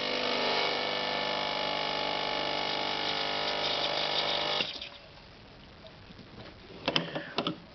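Sunbeam EM7000 espresso machine's pump running with a steady buzzing hum as it back flushes against a single blind filter, cutting off abruptly about four and a half seconds in. The pressure barely builds, which the owner puts down to the single blind basket not sealing properly. A few sharp clicks follow near the end.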